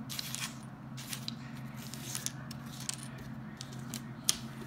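Small wooden game tiles clicking against each other and against a wooden tabletop as they are set down and shuffled out, in scattered light clicks with one sharper click about four seconds in.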